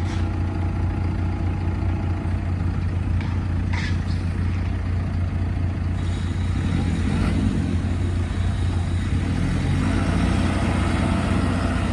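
JCB 3CX backhoe loader's four-cylinder diesel engine running steadily, with a few light clicks about three to four seconds in and the engine note picking up a little in the second half.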